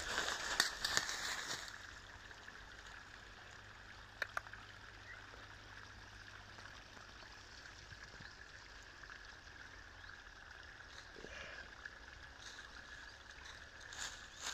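Footsteps crunching and rustling through dry fallen leaves for about the first two seconds and again near the end. In between, a steady faint rushing background.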